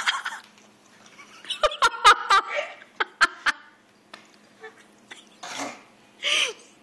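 Non-speech vocal noises while a live hornworm is being chewed: squeals and strained, gag-like sounds. They come in short bursts with a few sharp clicks in between.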